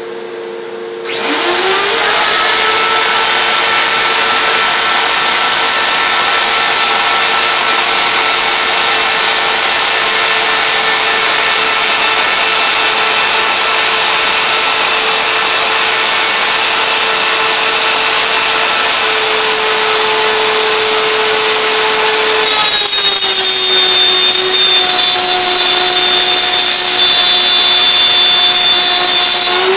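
CNC router spindle spinning up about a second in, then running at a steady high whine while it cuts a hole. About three-quarters of the way through, its tone drops a little and stays lower.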